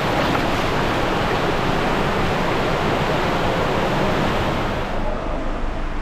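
Steady rush of water on a water slide, an even loud hiss whose high end thins out about five seconds in.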